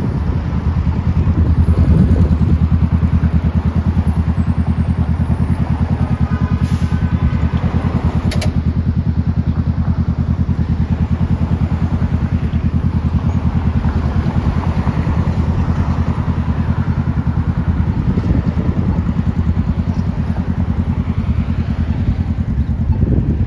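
Vehicle engine running steadily close by: a low, evenly pulsing rumble, with a sharp click about eight seconds in.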